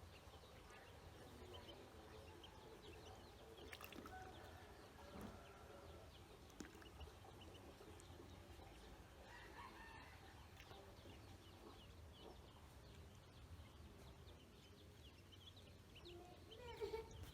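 Ducklings peeping faintly: scattered short high cheeps throughout, with a cluster of louder calls near the end, over a steady low hum.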